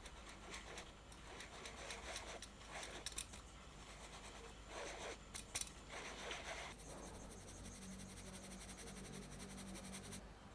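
Kitchen handling sounds: irregular clicks and scrapes, then from about seven seconds a fast, even ticking with a low hum that cuts off suddenly near the end.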